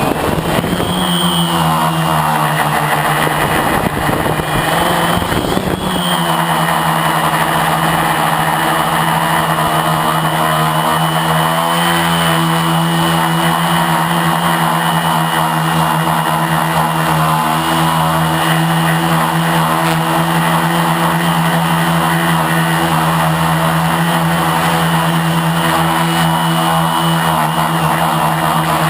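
Brushless motors and propellers of a Lotusrc T380 quadcopter in flight, a loud, steady buzzing whine picked up by the camera on board. The pitch wavers and shifts with throttle changes in the first few seconds, then holds fairly steady.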